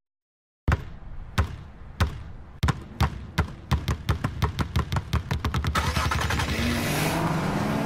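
Two basketballs dribbled on asphalt, the bounces starting slow and speeding up until they blur into a rapid patter, with a car engine starting to rev underneath near the end.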